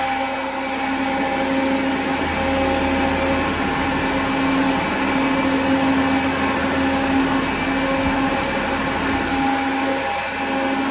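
Old engine-driven farm blower with a 4.5-foot fan running at full blast: a steady rush of air over a constant engine hum.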